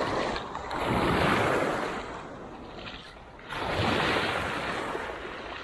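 Sea waves breaking and washing up the shore twice, each surge building and fading over about two seconds.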